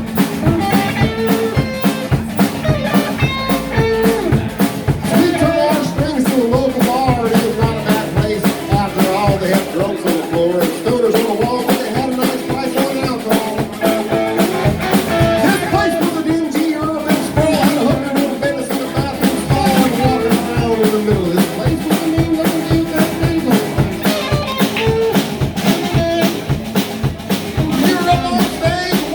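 A live band playing a song, with a drum kit keeping a steady beat under guitar.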